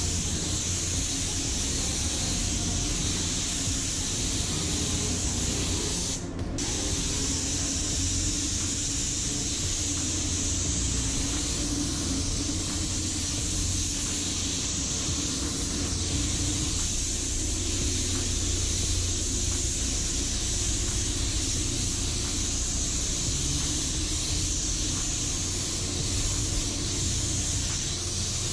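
Gravity-feed paint spray gun hissing steadily as it atomizes basecoat, with a low rumble underneath. The hiss briefly stops about six seconds in, then resumes.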